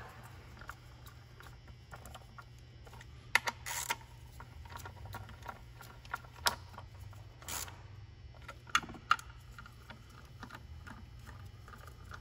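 Scattered sharp clicks and light taps of hand tools and intake parts while the hose clamps and hardware are tightened down, over a low steady hum.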